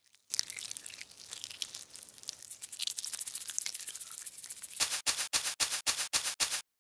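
Rattling, rustling sound effects. A crackly, hissing rustle runs for about four seconds, then about nine quick rattling strokes come at roughly five a second and stop abruptly near the end.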